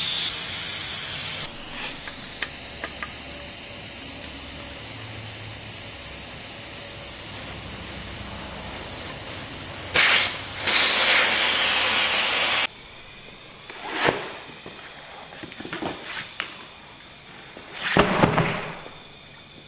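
Air hissing out of a puncture in a truck tire's tread, then a loud rush of air for about three seconds as the tire is let down at its valve stem. A few knocks and scuffs follow near the end.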